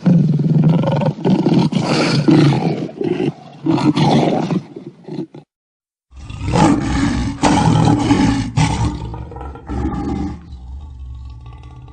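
Lion roaring and growling in two separate passages, with an abrupt cut to dead silence about halfway between them. The sound drops to a quieter, steadier rumble near the end.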